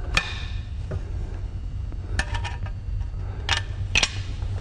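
Sharp metal clicks and clinks of steel shotgun parts being handled and fitted together, as the action of a side-by-side shotgun is put back on its barrels to test the joint. There are a handful of separate clicks, with a short cluster about two seconds in, over a steady low hum.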